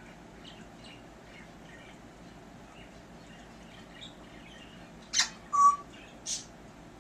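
African grey parrot imitating human hiccups: three short, sharp hiccup sounds about five seconds in, the middle one loudest with a brief tone. Before them come soft scattered chirps and clicks.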